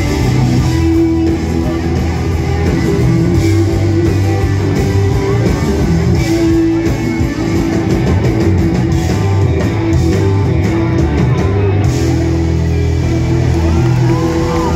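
Live rock band playing loudly: electric guitars, bass and a drum kit through a concert PA, heard from within the audience.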